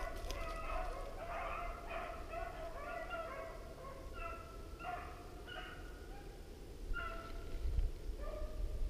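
Beagles baying in short, repeated, overlapping notes while trailing a rabbit, with a brief gap in the middle and a low rumble near the end.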